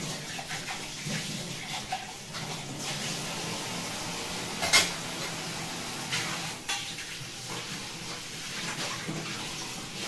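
Kitchen tap running into a sink while metal dishes and utensils are handled and clink together, with one sharp clatter a little before halfway and a couple of lighter knocks after it.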